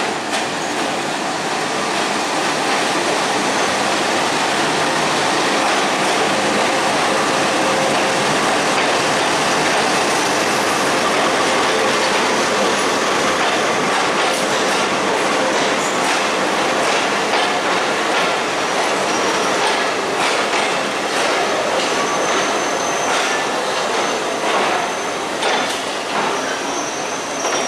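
Broad-gauge passenger train running on the rails, a steady rumble of wheels and cars with rail-joint clicks growing more distinct about halfway through. A thin, high wheel squeal comes in during the last few seconds.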